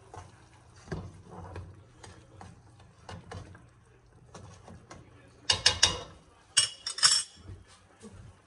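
A metal utensil stirring in a large metal stockpot of broth, with light scrapes and clinks against the pot. Louder bursts of clattering clinks come about five and a half seconds in and again a second later.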